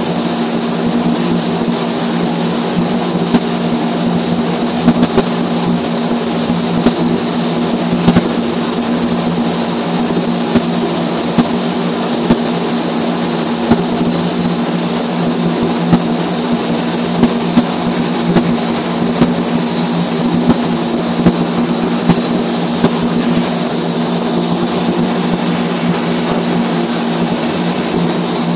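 Overhead flux-cored arc welding: the arc crackling and spitting with irregular sharp pops, over a loud steady low machinery hum.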